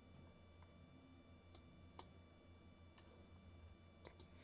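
Near silence with a low steady hum, broken by a few faint computer-mouse clicks: two around the middle and a quick pair near the end.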